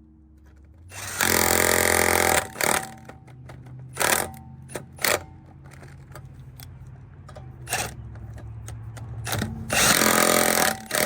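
Power impact wrench running the lug nuts down on the front wheel, in two bursts of about a second and a half, one about a second in and one near the end, with a few sharp clicks between.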